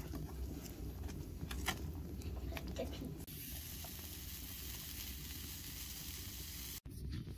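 Pizza dough sizzling on a hot cast-iron wood-stove top, with a few light scrapes and taps from a spoon spreading sauce over it in the first few seconds. From about three seconds in the sizzle turns into a brighter, steady hiss, which cuts off suddenly near the end.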